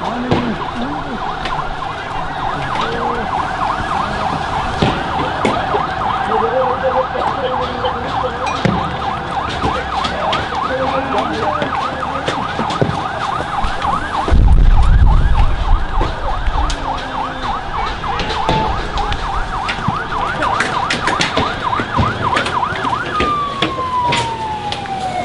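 Police siren wailing in a fast warble over a protest crowd's voices, with scattered sharp knocks and clatters. About fourteen seconds in comes a loud, low rush of noise lasting about two seconds. Near the end a tone slides steadily downward.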